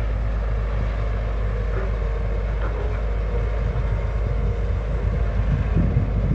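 Hyundai 220LC excavator's diesel engine running steadily with a deep low rumble, turning rougher for a moment about six seconds in.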